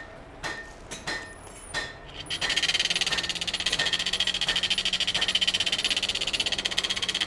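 A few knocks, then about two seconds in the coal forge's air blower starts and runs steadily, a whir with a fast rattle and a low hum, blowing air up through the fire pot to get the fire going.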